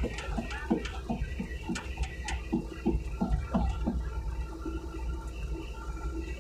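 Hitachi mini excavator's diesel engine running with a steady hum, with a quick run of irregular metallic knocks and clanks over the first few seconds as steel plates are handled.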